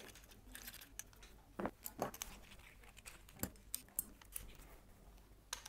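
Faint, scattered small clicks and light taps of an Allen key and metal parts being handled while the on/off valve is fitted onto a paintball marker, with a few slightly louder clicks in the middle.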